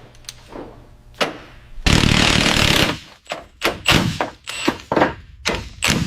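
Workshop tool work on a car body being stripped down: metal knocks and clunks, with a loud one-second burst of harsh, hissing noise about two seconds in, followed by a run of irregular knocks and clicks.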